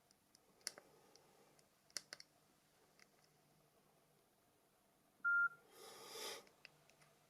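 Faint clicks of Nokia E70 keypad buttons being pressed, a few times, followed about five seconds in by one short electronic beep from the phone, then a brief breathy rush of noise.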